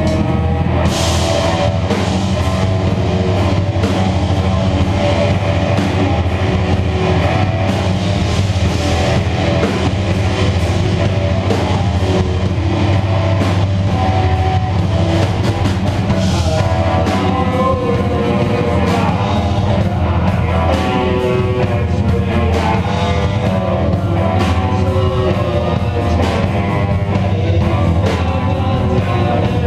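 A live rock band playing loud and without a break: electric guitar over a drum kit.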